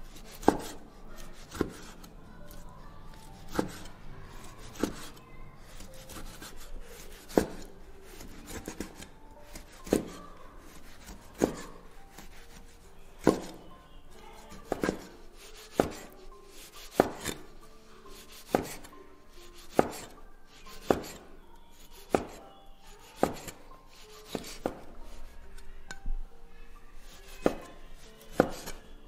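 Cleaver slicing cured pork belly on a wooden chopping board, each cut ending in a sharp knock of the blade on the board, in an unhurried rhythm of about one cut every second or so.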